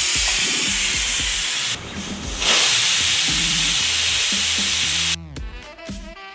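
Pressure cooker whistling: steam hissing loudly out through the lifted weight valve in two long blasts with a short break between. Each whistle is a release of built-up steam pressure, the whistles counted to time the cooking.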